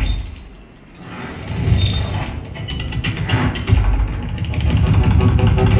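Sony HT-A7000 soundbar playing a surround demo soundtrack of sound effects: deep bass rumble and whooshes with rapid clicking. It drops to a lull about a second in, then builds up again.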